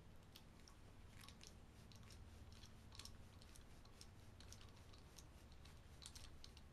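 Faint, irregular clicks of a screwdriver turning the small machine screws in the metal cap of a blow-off valve, over a low steady hum.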